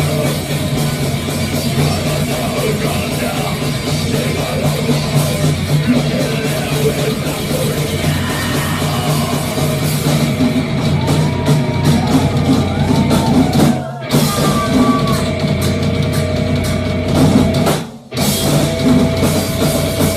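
Live rock band playing loudly: distorted guitars, bass and drum kit. The whole band stops short twice, about 14 and 18 seconds in, and a high note is held between the two stops.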